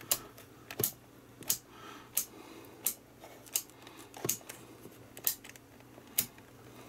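Proster VC99 digital multimeter's rotary selector switch and push buttons clicking under the fingers: about nine sharp clicks, roughly one every three-quarters of a second, as the functions and ranges are stepped through.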